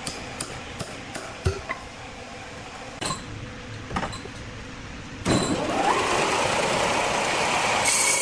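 A run of light knocks and clicks, then about five seconds in a large sawmill circular saw comes in suddenly and loudly, its pitch rising over the first second before it runs steadily.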